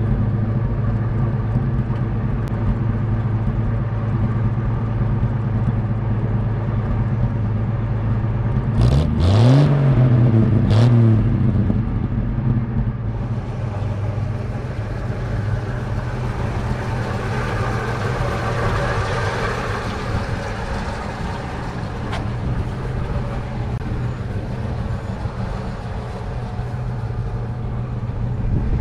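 1953 Chevrolet panel truck's inline six-cylinder engine idling steadily, revved briefly twice about a third of the way through, rising and falling in pitch each time before settling back to idle.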